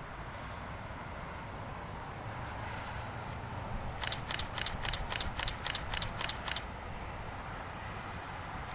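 A rapid burst of about ten camera shutter clicks, roughly four a second, starting about four seconds in and lasting about two and a half seconds, over a steady low background rumble.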